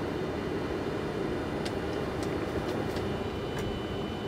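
Steady flight-deck noise of a Boeing 747-400 freighter taxiing: a low even rumble with a faint high whine running through it. A few light clicks come in the middle.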